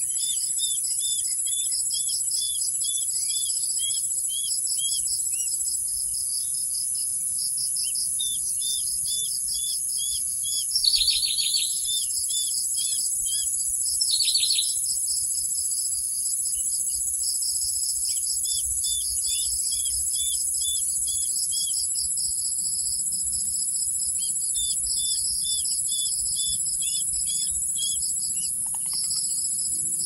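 Chorus of crickets and other insects, a steady high-pitched trill, with runs of short chirps repeating about two a second. Two louder, brief rasping bursts stand out near the middle.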